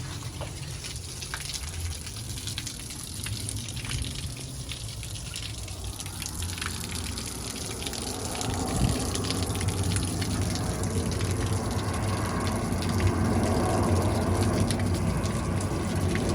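Water running in a steady gush, getting louder over the second half.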